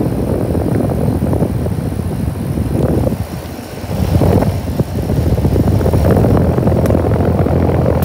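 Guardian GAW14L36C21SA 3-ton split-system condensing unit running, its condenser fan blowing air across the microphone held close to the grille and coil, giving a loud, rough rushing rumble. The level dips briefly a little after three seconds and again around four and a half seconds as the microphone moves.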